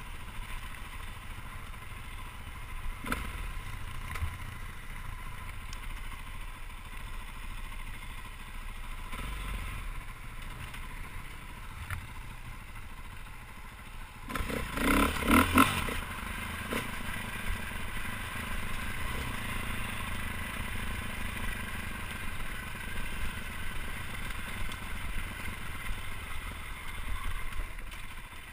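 Dirt bike engine running at low speed over a rocky trail, with a louder burst of rattling about halfway through.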